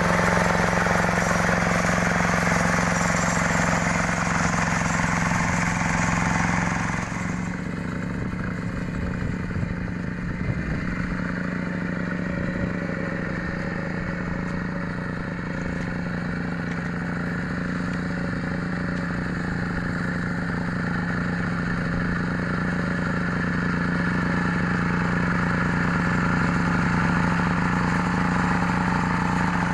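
Yanmar two-wheel hand tractor's single-cylinder diesel engine running steadily under load while it drives a rotary tiller through a wet paddy. About seven seconds in, the sound turns duller and a little quieter, then slowly grows louder again.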